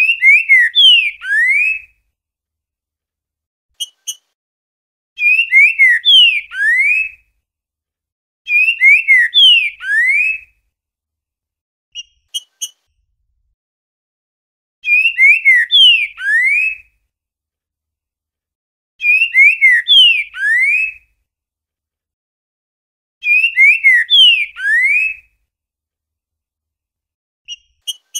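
Green-winged saltator (trinca-ferro) singing the 'boiadeiro' song type: six loud phrases of rising and falling whistled notes, each about two seconds long, repeated every few seconds. Short, faint high notes fall between the phrases.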